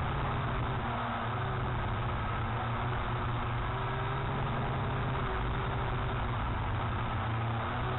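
Strong wind rumbling over the microphone, steady throughout, with a faint wavering hum on top.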